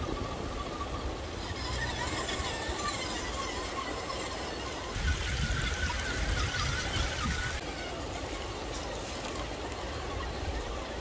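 Shallow creek water running over stones, with the faint whine of a 1/10-scale RC crawler's electric motor and gears wavering in pitch as it drives through the water.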